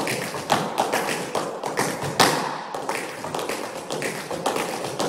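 Metal-plated tap shoes striking a studio floor as two dancers tap a combination: quick runs of sharp taps, several a second, with a few heavier stamps, the loudest about two seconds in.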